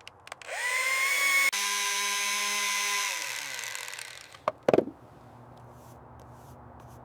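Electric power tool motor spinning up with a rising whine, shifting suddenly to a lower steady hum, then winding down in pitch as it is released. A few sharp clicks follow as it stops.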